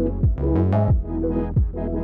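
Electronic background music with a steady beat: a deep kick drum about every two-thirds of a second under sustained synth chords, with a brief swell about half a second in.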